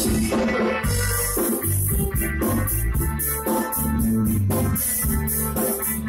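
Live band music with a steady beat: electric guitar, bass guitar, keyboard and drum kit playing together, the cymbal ticking evenly over a bass line.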